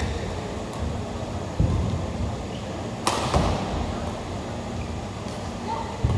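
Badminton rally: one sharp crack of a racket hitting the shuttlecock about three seconds in, a fainter hit about two seconds later, and low thuds of footwork on the court.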